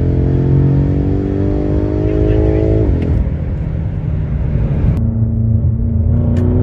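BMW M5 Competition's twin-turbo V8 pulling hard under full acceleration, the revs climbing steadily, then dropping sharply at an upshift about three seconds in. After the shift it holds a lower, steadier note, which turns duller about five seconds in.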